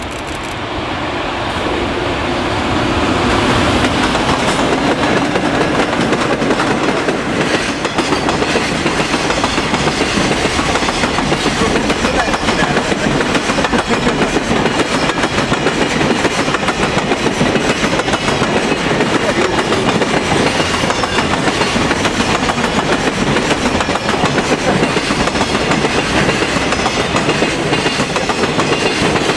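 Electric-hauled freight train passing close by: the EF200 electric locomotive goes by as the sound builds over the first few seconds. A long string of container wagons follows in a steady rumble, with wheels clattering over the rail joints.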